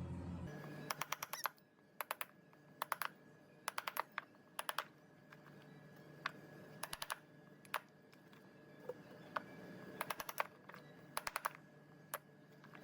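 Sharp clicks coming in short quick clusters, a few clicks each, with pauses between, like typing, over a faint steady hum.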